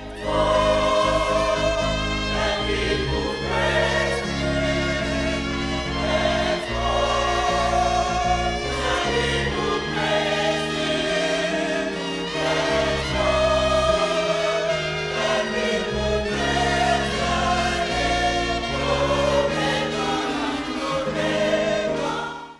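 Gospel choir singing over sustained instrumental chords, as opening music that ends abruptly.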